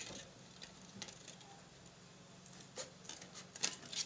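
Large scissors snipping through pieces of a DVD: a few short, sharp clicks as the blades cut the thin plastic, most of them in the second half.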